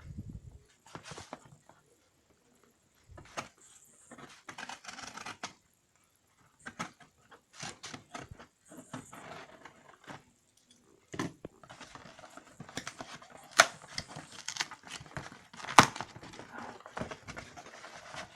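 Cardboard and plastic packaging being torn open and handled: irregular tearing, rustling and crinkling, with two sharp snaps in the second half.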